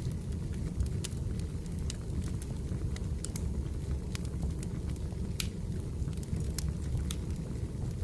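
Firewood burning: a steady low rumble of flames with scattered sharp crackles and pops, one louder pop about five and a half seconds in.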